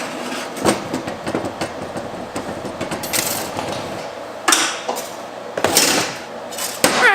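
Metal clanks and knocks from steel parts and tools being handled, with several louder clattering bursts about four and a half, six and seven seconds in.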